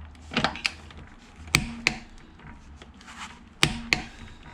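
A few sharp knocks and clicks, coming in pairs about a third of a second apart, the loudest two each followed by a brief low ring, like hard objects or tools being handled and set down.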